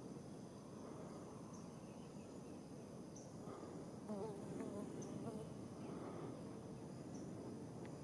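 Insects buzzing steadily, with a short high chirp repeating about every second and a half. A brief warbling call comes about four seconds in, over a soft background hiss.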